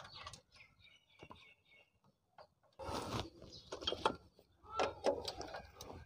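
Metal clicks and clinks of a wrench and bolt as the gearshift stopper plate bolt on a Honda CD70 engine is fitted and tightened, busier from about halfway through. Birds chirp in the background.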